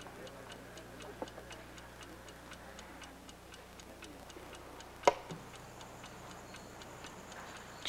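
Chess clock ticking steadily, about four ticks a second, with one sharp click about five seconds in.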